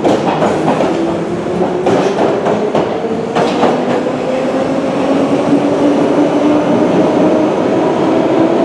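London Underground Piccadilly line train, 1973 stock, pulling out of the platform into the tunnel. Its traction motor whine rises in pitch as it accelerates over the rolling rumble, with a few sharp wheel clacks over rail joints in the first few seconds.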